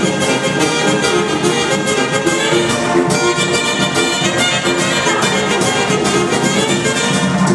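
Loud dance music with prominent brass, played through a DJ's sound system.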